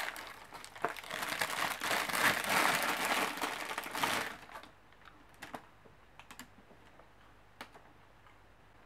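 Candy wrapper crinkling and rustling as it is opened, dense for about four seconds, then only a few faint clicks and rustles.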